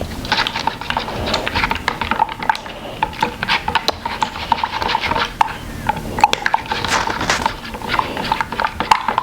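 A spoon stirring oil and food coloring in a cup, clinking rapidly and unevenly against the side several times a second, each tap giving a short ring.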